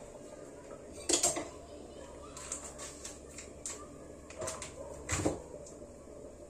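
Kitchen clatter: a handful of short knocks and clinks of dishes and utensils. The loudest are a pair about a second in and one about five seconds in.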